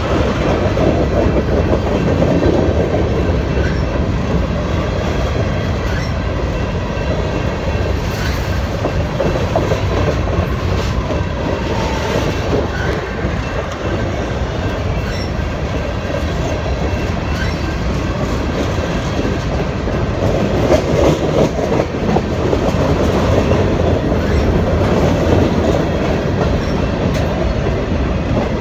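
Freight cars (covered hoppers and open gondolas) rolling past close by: a steady rumble of steel wheels on the rail, with clicks as the wheels cross rail joints.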